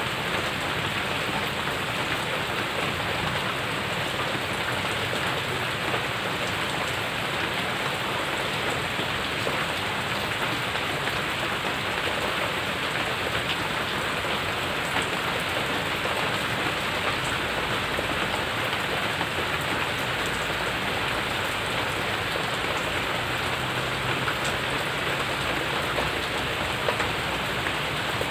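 Steady heavy rain falling on a paved yard, its puddles and the surrounding foliage: an even hiss of rain with scattered drops standing out.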